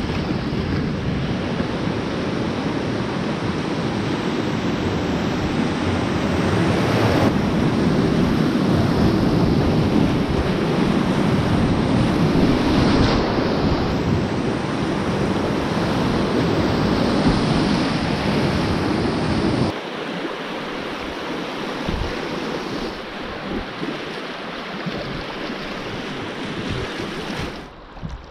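Whitewater river rushing around a kayak running a rapid, with paddle strokes splashing and wind buffeting the camera microphone. About two-thirds of the way through it cuts suddenly to a quieter, gentler flow of calm water.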